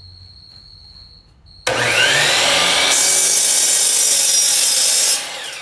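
DeWalt DWS779 12-inch sliding miter saw with a 60-tooth blade. The motor starts suddenly about a second and a half in, with a rising whine as it spins up. About a second later the blade bites into a 2x4 and cuts through it for about two seconds, then near the end the trigger is released and the motor winds down.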